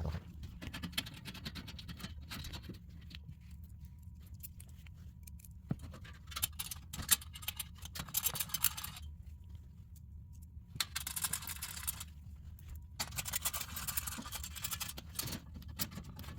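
Small metal parts clinking and scraping: M6 screws and washers being handled and threaded by hand into a stainless steel shield, in irregular spells with a few sharp clicks.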